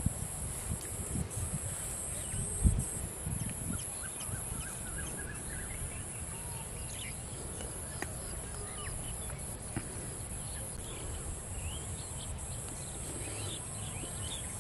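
Rural outdoor ambience: a steady high-pitched insect drone, scattered short bird chirps and a low rumble, with a single thump about three seconds in.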